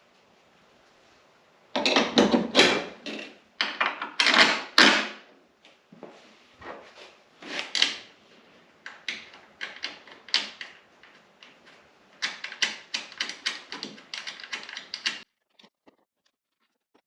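Irregular clatter and clicks of hand tools and metal hardware being handled, with a few louder knocks early and a quick run of clicks, several a second, near the end.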